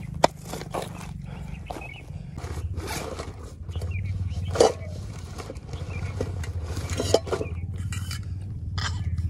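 Rustling and clunking of a backpack being rummaged through and a metal water bottle pulled out, with a few sharper knocks, over a steady low rumble.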